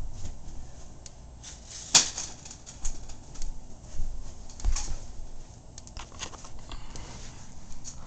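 Scattered clicks and short rattles of window blinds being closed and a room light being switched off, with a sharp click about two seconds in.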